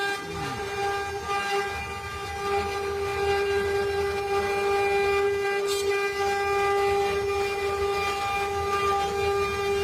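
Spindle motor of a mini CNC wood carving router running with a steady high-pitched whine over a low, uneven rumble.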